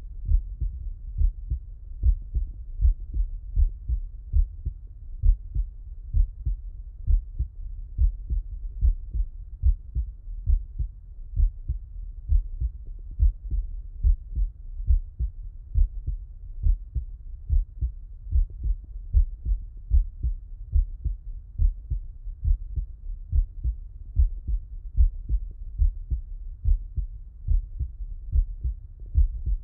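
A man's heartbeat heard through a stethoscope: low, muffled thumps that repeat in a slow, steady, regular rhythm.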